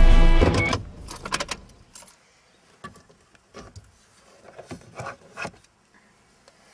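Music stops suddenly under a second in. After it come scattered light clicks and rattles of plastic and cable as a car's glove compartment is opened and a portable GPS unit is taken out.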